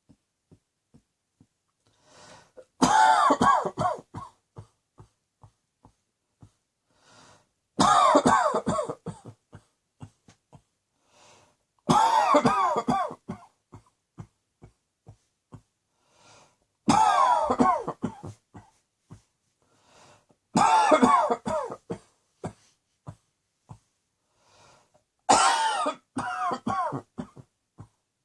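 A person coughing in six fits about four to five seconds apart, each a quick run of several coughs lasting one to two seconds.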